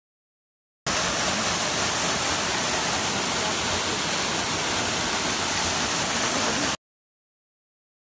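Steady rush of a waterfall's falling water, an even hiss with no changes, that starts abruptly about a second in and cuts off abruptly near the end.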